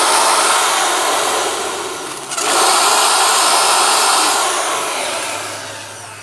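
Corded Skil electric drill running at speed with a twist bit boring through a wooden plank. It stops briefly about two seconds in, then runs again and winds down near the end.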